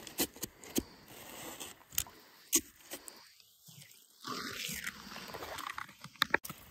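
Scraping and crunching in snow and ice with scattered sharp clicks and knocks, from a beaver trap being handled and reset; a longer stretch of scraping about four seconds in, and a few sharp clicks near the end.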